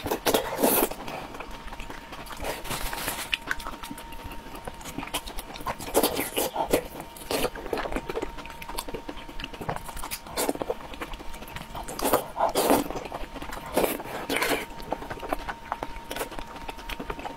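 A person eating soft, saucy pieces of offal from a spicy broth, with wet chewing and slurping mouth sounds in irregular bursts. A faint steady high tone hums beneath.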